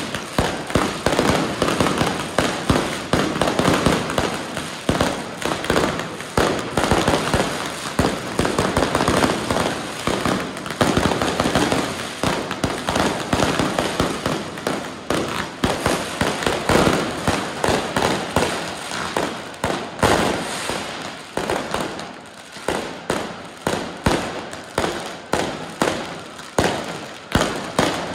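Aerial fireworks fired from the street, a dense, rapid run of bangs and crackles that thins after about twenty seconds into separate bangs about one a second.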